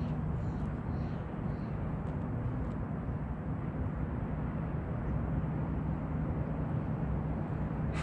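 Bass boat's electric trolling motor running steadily: a constant low hum over an even rushing noise.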